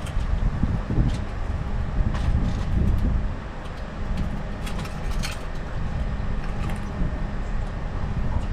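Steady low rumble of a boat motor running, with a faint constant hum, wind buffeting the microphone and a few light clicks and knocks.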